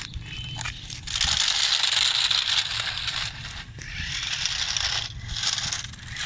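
Remote-control toy sports car driving over gritty pavement, its plastic wheels scraping and crunching on the grit. One long run is followed by shorter spurts.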